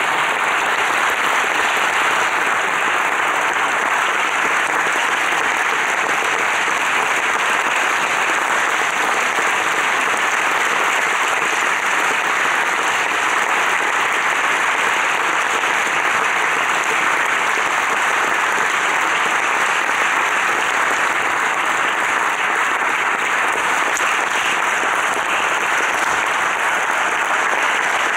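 Theatre audience applauding, a dense, steady clapping that keeps up without a break.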